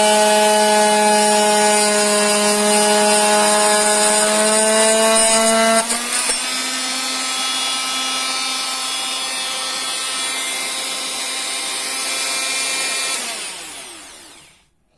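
An electric power tool runs steadily while cutting laminate boards back from the wall to open the expansion gap. About six seconds in its note shifts slightly and it gets a little quieter. Near the end it winds down and stops.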